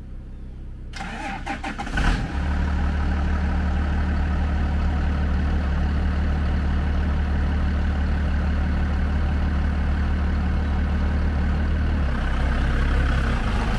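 Ford pickup truck engine cranking over and catching about two seconds in, then idling steadily.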